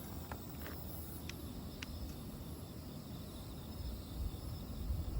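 Night insects, crickets among them, chirping steadily over a low outdoor rumble that swells near the end, with a few faint ticks.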